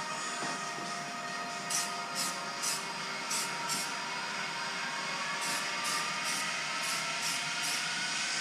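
Background music with sustained tones and a regular high-pitched tick, about two a second.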